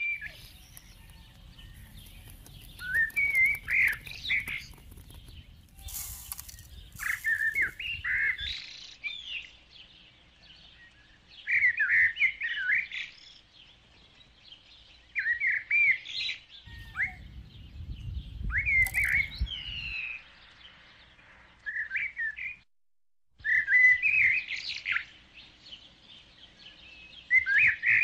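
A songbird singing short chirping phrases over and over, a few seconds apart. A couple of brief clicks come about six and seven seconds in, and a low rumble sits under parts of it.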